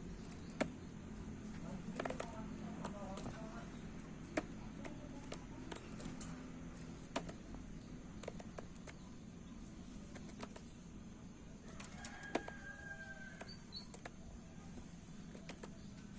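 Orange-headed thrush moving about its cage: scattered sharp clicks and knocks over a steady low hum, with short faint pitched calls about two seconds in and again about twelve seconds in.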